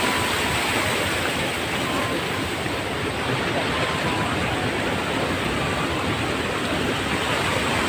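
A waterfall's falling water, rushing steadily.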